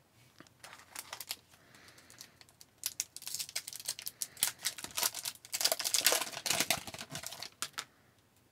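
Trading-card pack wrapper torn open and crinkled by hand: a dense run of crackles, loudest about two-thirds through, with a few light clicks of card handling before it.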